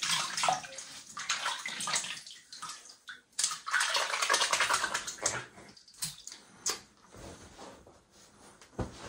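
Wet synthetic shaving brush being worked over shaving soap to build lather: squelchy, bubbly swishing in uneven bursts, with two short clicks about two-thirds of the way through.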